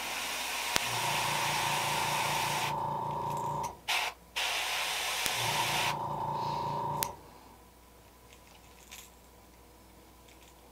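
Airbrush spraying paint: a steady hiss of air with a hum under it. It runs in two spells of about four and three seconds with a brief break between them, and stops about seven seconds in.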